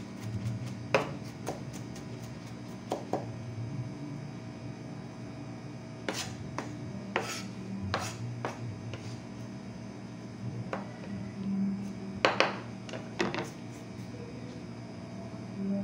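Chef's knife knocking on a bamboo cutting board while mincing onion, in scattered, irregular sharp knocks, with a brief flurry of louder ones about twelve seconds in.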